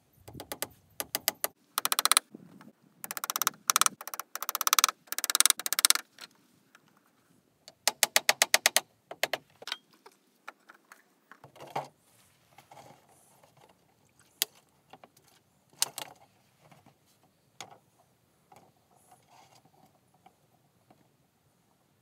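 Hand tool clicking in fast runs of sharp clicks, five or six bursts in the first nine seconds, then scattered lighter knocks and handling sounds.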